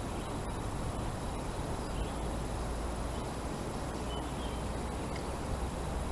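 Steady outdoor background noise: an even hiss with a low rumble underneath, broken by a few faint, short, high bird chirps.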